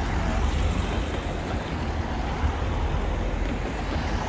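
Road traffic: cars driving past close by over the level crossing, a steady low noise.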